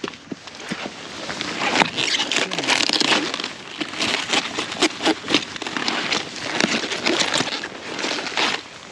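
Cabbage heads being cut and handled: a busy run of rustling, crackling and snapping of crisp cabbage leaves, with many short sharp cracks.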